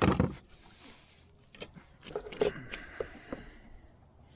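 A loud knock on the plastic kayak hull, then a scattered run of sharp clicks and knocks as bow-fishing gear, the line and the arrow, is handled on the deck.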